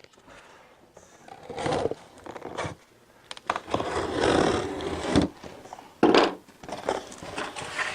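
A vacuum cleaner's packaging being unboxed by hand: irregular scraping and rustling with a few knocks, the loudest a sharp bang about six seconds in.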